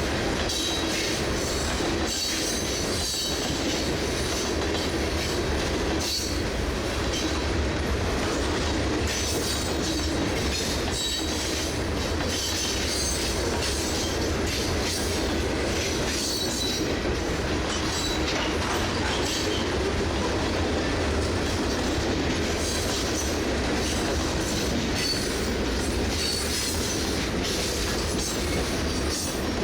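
Freight cars of a CSX manifest train rolling past: a steady rumble and rattle of steel wheels on the rails, with scattered clicks as wheels cross rail joints.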